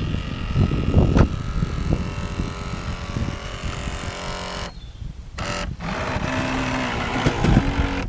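Toy RC tugboat's small battery-powered electric motor whining steadily. The motor cuts out briefly about five seconds in and starts up again. A low, uneven rumble sits under it, loudest in a sharp knock about a second in.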